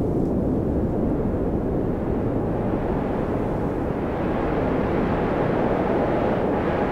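Steady, low rushing wind of a snowstorm, with a faint howling tone that swells and fades near the end.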